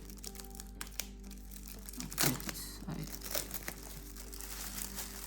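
Packaging crinkling and rustling as a gimbal is handled and lifted out of its box, in a few short bursts, the loudest about two seconds in, over quiet steady background music.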